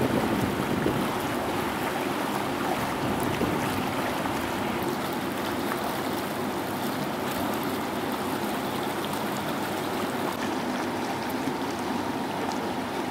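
Steady, even rush of water along the hull of a river cruise ship under way.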